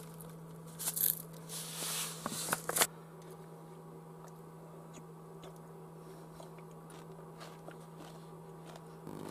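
Someone eating yoghurt with crunchy cereal from a plastic bowl with a plastic spoon. There is a burst of crunching and scraping from about one to three seconds in, then scattered soft clicks and taps, over a steady low hum.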